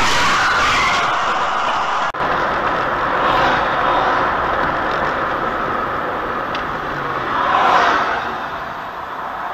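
Road noise from a moving car: a steady rush of tyres and wind. It breaks off sharply for an instant about two seconds in and swells louder near the end.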